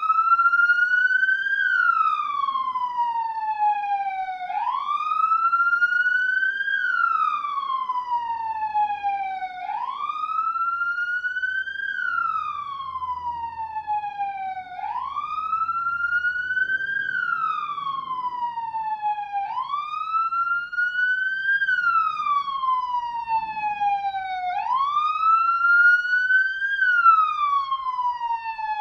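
Ambulance siren sounding a wail. Each cycle rises quickly in pitch, then falls slowly, and repeats about every five seconds.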